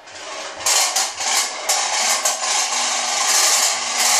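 Toy pop-pop boat running on its candle-heated boiler: a rapid, continuous metallic popping and clicking that starts under a second in.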